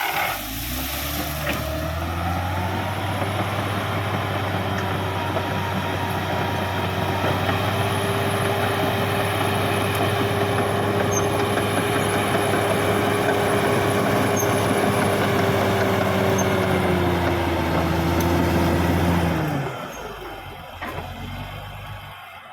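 Caterpillar D6R XL bulldozer's diesel engine revving up, holding steady at high revs, then throttling down about nineteen seconds in.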